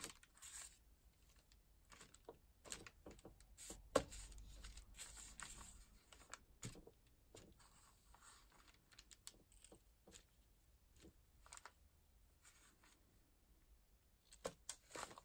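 Faint handling sounds of thin rice paper being lifted and laid down, with scattered light taps of a clear acrylic stamp block, and one sharper knock about four seconds in.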